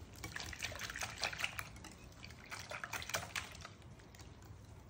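Wire whisk beating a thick batter of eggs, milk and grated cheese in a glass bowl: wet slapping and sloshing with irregular quick clicks of the wires against the glass.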